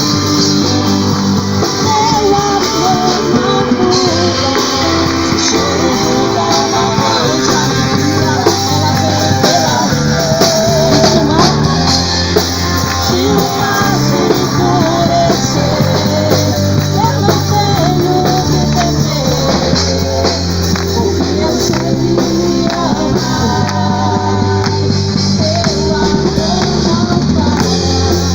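Worship music: a band playing with voices singing, steady and loud throughout.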